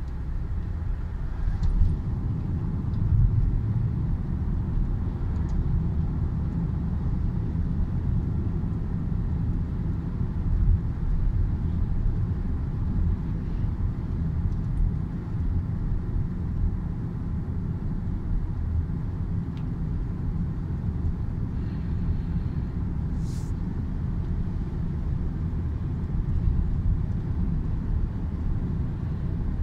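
Steady low rumble of road and engine noise inside a car cruising along a paved road.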